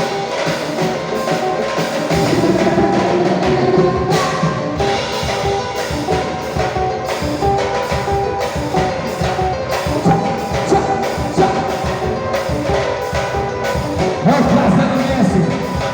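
Live pagode samba band playing an instrumental passage: cavaquinho over a fast, steady samba percussion beat.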